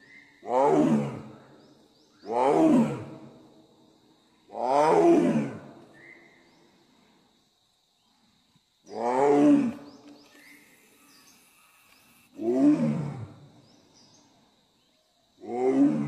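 Royal Bengal tiger roaring: six separate roars, each about a second long and falling in pitch, spaced two to four seconds apart.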